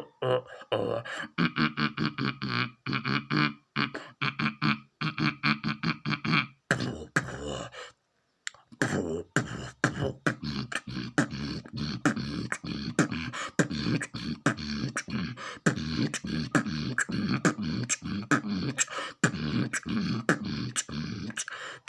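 Human beatboxing imitating a drum kit: mouth-made kick, snare and hi-hat strokes in a steady rhythm. A brief pause about eight seconds in, then a faster, even beat of about four strokes a second.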